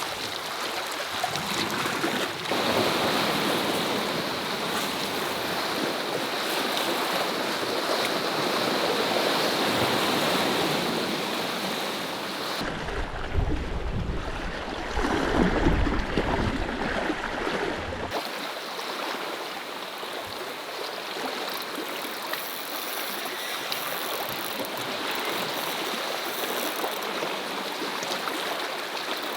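Sea surf washing over a rocky shore, a steady rush of water. For about five seconds in the middle it turns to a heavier low rumble.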